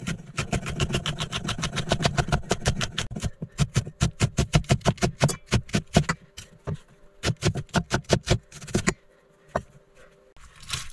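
Cleaver-style kitchen knife chopping a jalapeño and a red onion on a wooden cutting board: rapid, even knocks of the blade on the wood, about five or six a second, growing sparse near the end. A low steady rumble sits under the chopping for the first few seconds.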